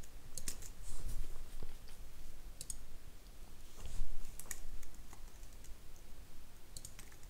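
Irregular, scattered clicks of a computer keyboard and mouse, with a somewhat louder click about four seconds in.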